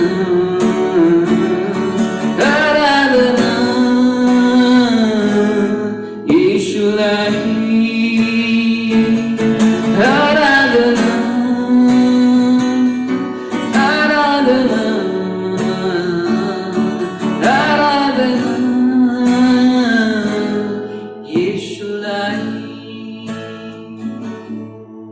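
Worship song: a voice singing to acoustic guitar, fading out near the end.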